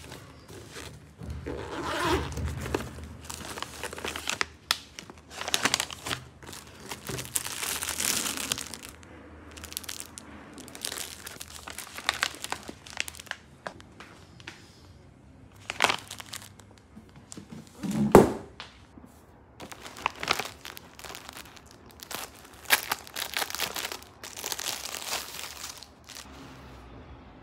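Clear plastic packaging crinkling and rustling in irregular bursts as wrapped gift items are handled and unwrapped, with one louder thump about two-thirds of the way through.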